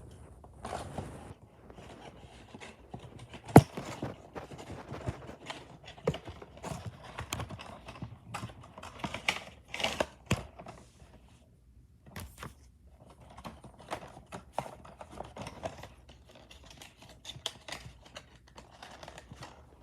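Plastic DVD cases and packaging being handled and opened: scattered clicks, taps and crinkling, with one sharp snap about three and a half seconds in.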